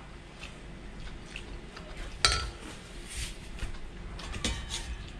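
Spoons and tableware clinking and scraping during a meal, on ceramic plates and a metal cooking pot, with one sharp ringing clink a little past two seconds in and another near the end.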